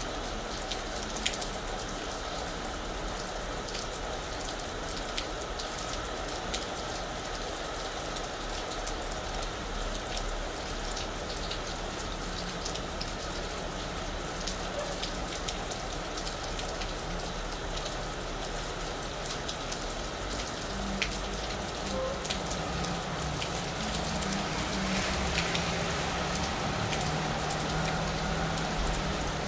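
Steady rain falling on a roof, a dense patter of individual drops over an even hiss. A low rumble comes up in the last few seconds.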